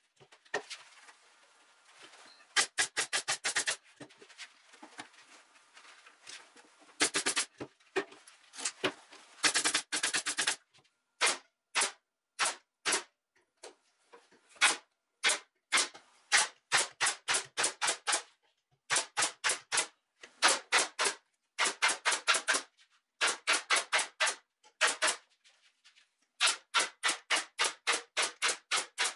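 Pneumatic upholstery staple gun firing staples through jute webbing and burlap into a wooden chair seat frame, in quick runs of sharp clicks at about four or five a second with short pauses between runs.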